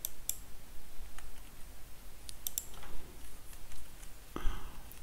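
Computer keyboard typing and mouse clicks: scattered short, sharp clicks.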